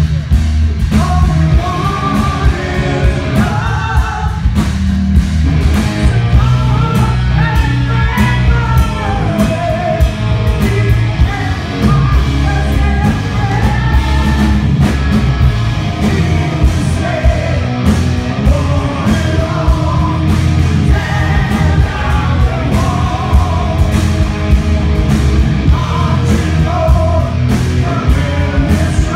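Hard rock band playing live: a male singer over electric guitar, bass guitar and drums, loud and continuous.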